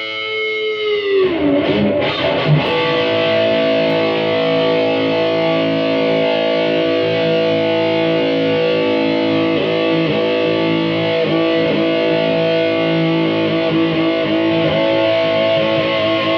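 Electric guitar with DiMarzio Dreamcatcher and Rainmaker pickups, played with distortion: a held chord whose pitch drops about a second in, then sustained notes with a few quick wavers in pitch.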